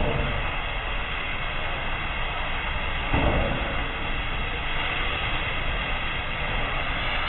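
Steady rushing noise of a high-pressure commercial wok burner on full flame while a wok of noodles is stir-fried and tossed, with a brief louder surge about three seconds in.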